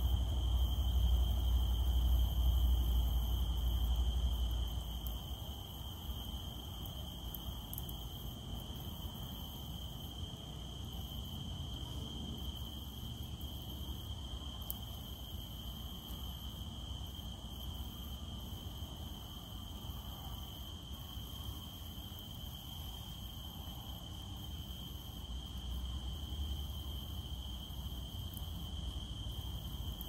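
Cicadas droning in one steady, unbroken high-pitched tone over a faint even hiss. A low rumble underneath is strongest at the start and fades about four to five seconds in.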